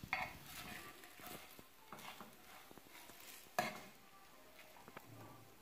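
Faint clinks and scrapes of a steel spoon against a nonstick frying pan as it pushes and rolls a thin crepe, with the sharpest clink about three and a half seconds in.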